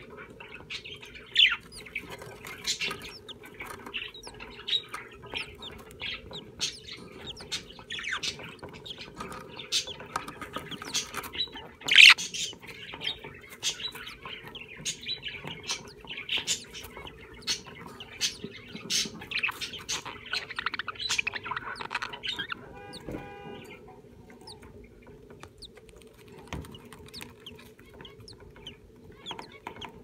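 Budgerigars chirping and chattering softly, with many short sharp chirps and clicks and one louder one about halfway through, then a single clear pitched call a little past two-thirds of the way, after which it goes quieter. A low steady hum runs underneath.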